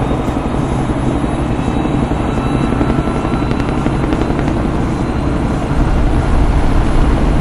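Helicopter flying overhead, a steady rotor and engine drone that grows louder near the end.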